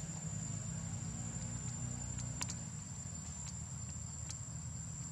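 Steady high-pitched insect drone in the forest, over a low rumble, with a few sharp clicks, the loudest about two and a half seconds in.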